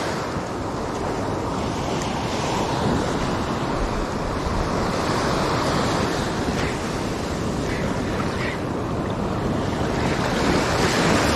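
Ocean surf breaking and washing up the beach in a steady rush, with wind noise on the microphone.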